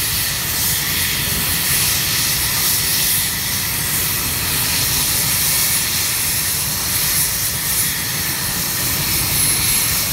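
UH-60 Black Hawk helicopter running on the ground while it warms up before takeoff: its twin turboshaft engines make a high, steady whine over the turning main rotor. The sound stays even throughout.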